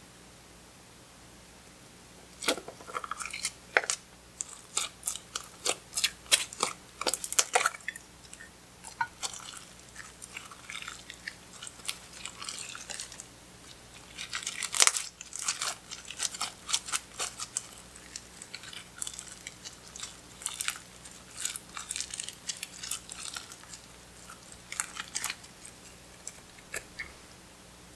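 Clear slime being squeezed and kneaded by hand as eyeshadow is mixed in, giving irregular clicks and pops. It starts about two and a half seconds in and goes on with brief pauses.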